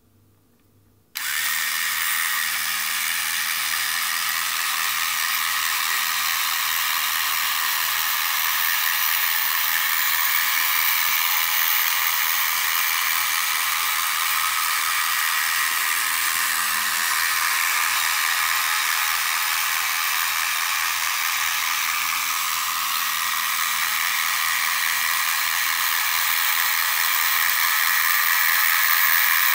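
Small tabletop robot vacuum cleaner kit switched on about a second in, its little suction fan motor running with a steady high whir, with a faint low pulse repeating about one and a half times a second beneath it.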